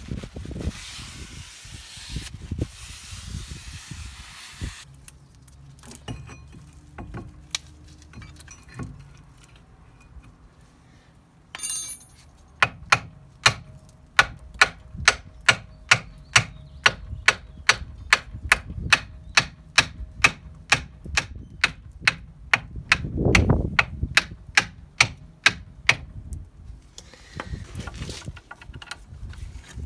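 Brake cleaner hissing from a spray bottle onto a brake disc for several seconds. Then, after a clatter of metal, a hand tool clicks sharply and evenly about twice a second for over ten seconds while the brake caliper is refitted.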